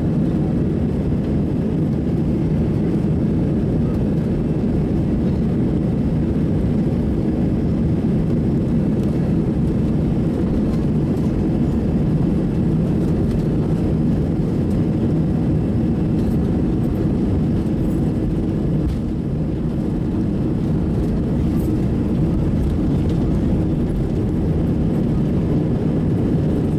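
Airbus A320 jet engines at takeoff thrust during the takeoff roll, heard inside the cabin over the wing as a steady, loud, deep rumble, mixed with the rumble of the wheels on the runway.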